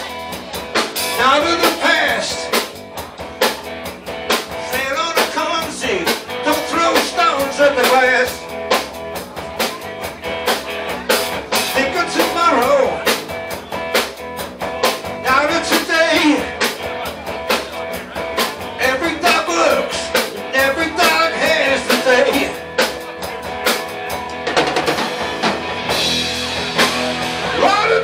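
Live rock-blues band playing an instrumental break between sung verses: drum kit, bass and electric guitars, with a lead line that bends and wavers in phrases repeated every few seconds.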